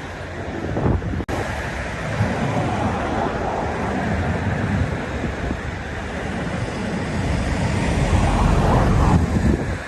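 Sea waves washing ashore, a continuous rush with low rumble that swells louder near the end. There is a momentary dropout about a second in.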